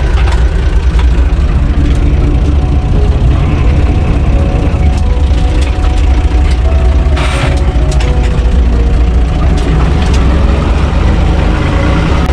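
UTB 445 tractor's diesel engine running steadily, heard from inside the cab, with scattered clicks and rattles and a short burst of rasping noise about seven seconds in.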